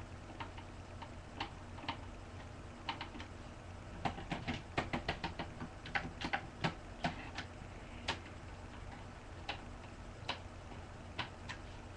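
Irregular small clicks and taps of a screwdriver working long screws out of a desktop computer, with a quick run of clicks in the middle.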